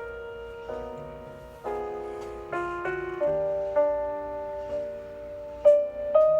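Background music: a slow, gentle piano melody, single notes and chords struck and left to ring.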